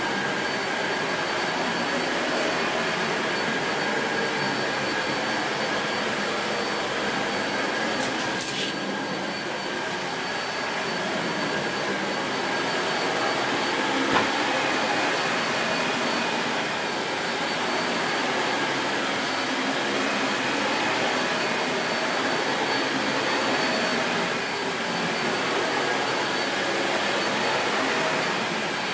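Dyson Light Ball upright vacuum cleaner running on maximum suction and being pushed over carpet, its brush roll biting into the pile. It makes a steady rushing drone with a high motor whine on top, and there is a single small click about halfway through.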